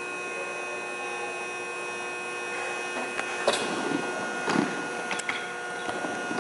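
Quad roller skate wheels on a skatepark ramp: a sharp knock as the skater drops in about halfway through, then the wheels rolling across the ramp with a few more knocks. Under it, a steady whirring hum.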